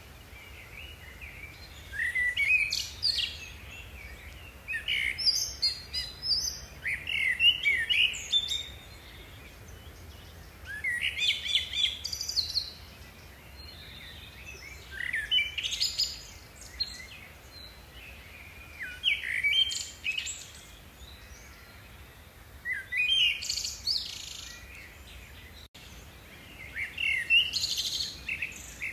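A songbird singing short, rapid phrases of sweeping high notes, repeated about every three to four seconds.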